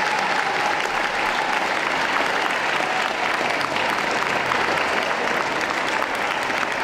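Audience applauding steadily, a dense run of many hands clapping.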